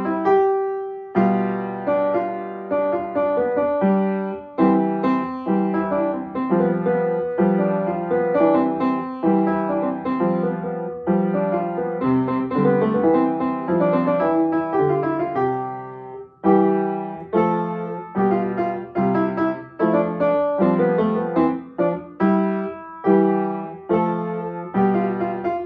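Upright piano played by a young student: a classical piece in a steady rhythm, with a brief pause about sixteen seconds in.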